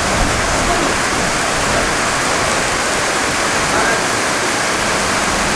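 Heavy thunderstorm rain pouring down on a parking lot: a loud, steady, dense hiss of downpour.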